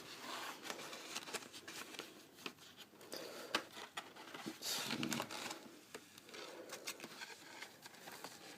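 Paper and packaging being handled: intermittent rustling with many small clicks and taps.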